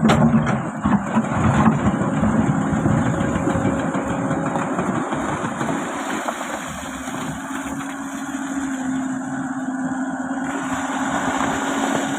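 Excavator engine running steadily, with a few knocks in the first couple of seconds and a steady hum setting in about halfway through.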